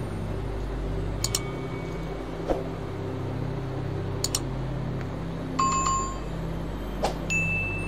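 Several sharp clicks with short bell-like dings, the pop-up sound effects of an animated subscribe-button and notification-bell overlay, over a steady low hum.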